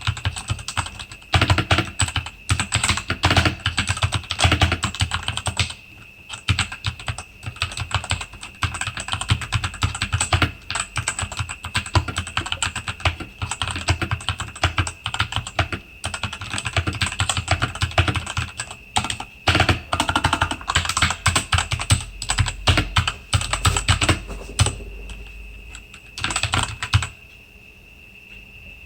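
Typing on a Rexus Daiva RX-D68 mechanical keyboard with Outemu red linear switches: fast, continuous key clacks, with a brief pause about six seconds in and the typing stopping shortly before the end.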